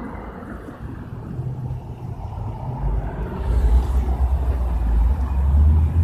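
Ford Mustang Shelby GT350's 5.2-litre flat-plane-crank V8 accelerating away, a deep exhaust rumble that swells about halfway through.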